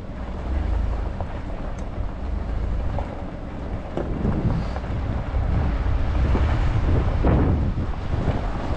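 Heavy wind buffeting the microphone, with a low rumble underneath that surges unevenly.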